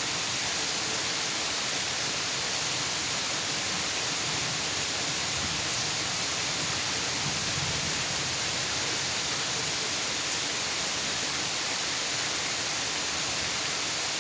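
Steady rain falling, an even hiss that does not change in level.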